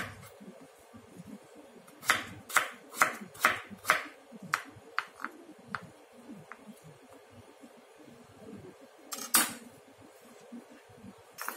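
Serrated kitchen knife cutting through a raw potato and knocking on a wooden chopping board: a run of about ten sharp knocks over four seconds, then two more near the end.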